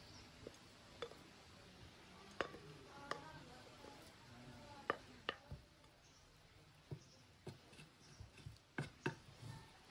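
A wooden spoon knocking and scraping against a glass bowl and a metal pot as cooked rice is spooned from one into the other, about ten short, sharp knocks spread unevenly, one every second or so.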